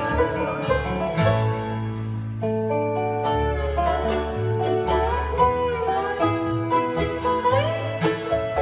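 Bluegrass band playing an instrumental break between verses: banjo, mandolin, resonator guitar (dobro), upright bass and acoustic guitar, with sliding lead notes over a steady plucked bass line.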